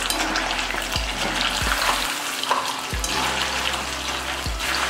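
Paneer cubes deep-frying in hot oil in an aluminium kadai, a steady sizzle, stirred with a wire-mesh skimmer.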